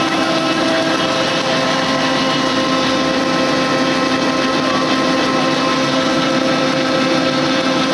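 Stack-type flexographic printing press running steadily: a continuous mechanical hum with several held tones over an even whirring noise.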